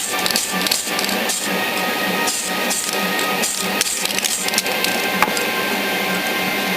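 Aerosol spray can of Tamiya AS28 medium gray hissing as paint is sprayed, with short surges of spray and rapid, evenly spaced ticks for the first four and a half seconds before it evens out.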